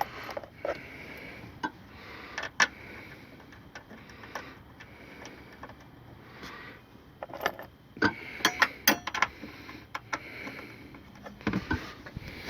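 Loose metal bolts handled and clinking against each other and the metal seat brackets: scattered light clicks and rattles, with a quick run of clinks about eight to nine seconds in.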